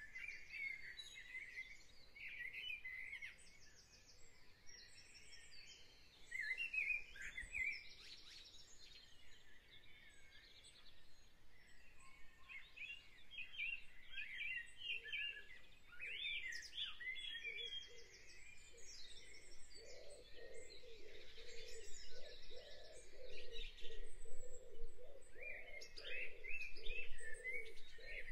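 Woodland birdsong: several small birds chirping and trilling. From about halfway through, a lower, pulsing sound of unclear source rises beneath it and grows louder toward the end.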